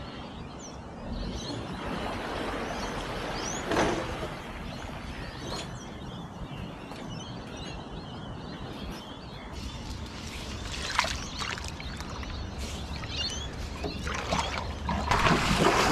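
Calm waterside outdoor ambience with faint scattered bird chirps. In the last couple of seconds come louder knocks and rustling as someone moves about and handles gear aboard a small boat.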